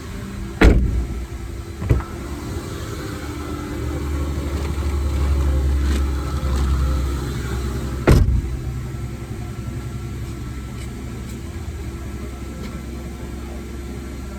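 Vacuum cleaner running steadily, with two loud knocks, one about a second in and one about eight seconds in, and a smaller click near two seconds. A deeper hum rises for a few seconds in the middle.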